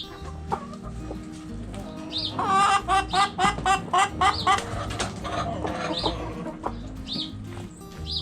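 Hens clucking, with a quick run of about eight loud clucks, roughly four a second, a little over two seconds in. A few short high chirps come in between.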